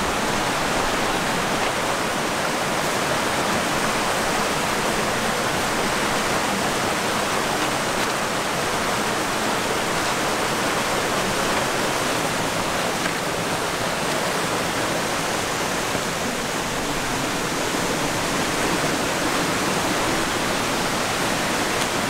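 A shallow rocky river rushing over boulders and small cascades: a steady, even rush of water.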